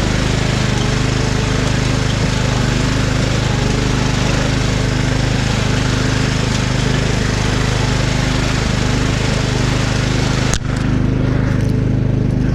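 Riding lawn mower engine running steadily, a loud even hum under a dense hiss. About ten and a half seconds in, the hiss drops away abruptly while the engine hum continues.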